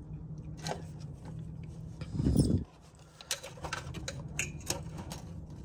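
Hands working wiring and connectors in an engine bay: small clicks, scrapes and rustling, with a short muffled bump about two seconds in.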